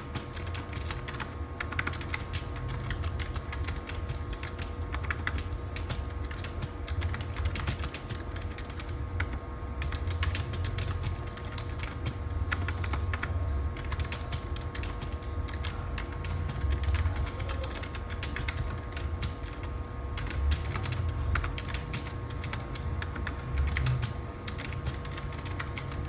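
Fast, continuous typing on an A1tech AS807 membrane gaming keyboard: a dense, irregular stream of soft key clicks.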